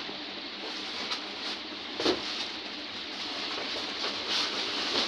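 Rustling and crinkling of plastic wrapping and cardboard as a flat-screen TV is handled in its packing box, with a few brief louder crackles and one louder bump about two seconds in.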